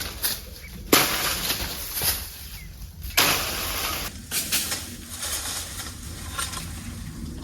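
Chestnut tree branches being beaten and pulled with a pole: two sudden, loud thrashes of leaves about a second in and about three seconds in, followed by crackling and snapping of twigs, leaves and chestnut burrs.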